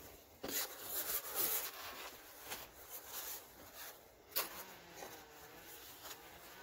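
Hands scooping, squeezing and raking through a deep bed of fine dry powder in a plastic tub: uneven soft crunching, rubbing and pattering, with one sharper tap a little past four seconds in.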